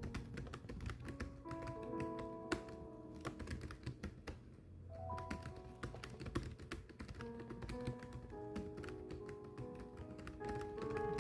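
Rapid, irregular typing: keys clacking many times a second over soft background music with held notes.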